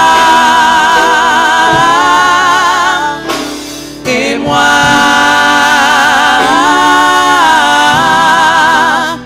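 A small group of singers, women and a man, singing a French worship song in harmony, holding long notes with vibrato. A short break about three and a half seconds in, then another long held phrase that steps up in pitch and back down.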